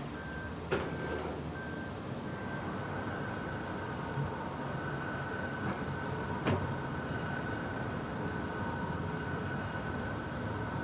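Big factory machine running: a steady mechanical hum with a thin high whine that pulses at first and then holds steady. Two sharp knocks come through, one just under a second in and one about six and a half seconds in.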